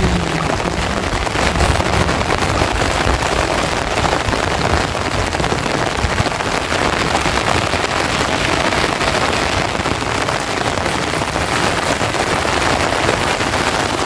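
Heavy rain falling steadily, a dense even hiss of drops on surfaces.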